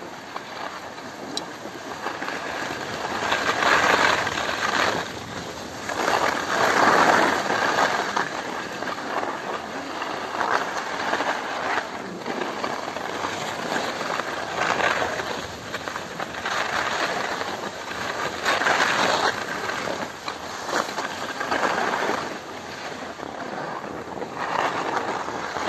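Skis sliding and scraping over groomed, packed snow during a downhill run, mixed with wind rush on the microphone. It comes as a steady hiss that swells and eases every few seconds.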